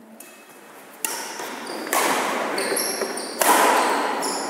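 Badminton rally on a wooden indoor court: three sharp racket strikes on the shuttlecock, about a second in, near two seconds and about three and a half seconds in, each ringing on in the hall, with short high squeaks of shoes on the floor between them.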